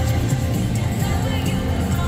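Pop concert music played loud over a stadium sound system, heard from among the crowd, with the bass strongest.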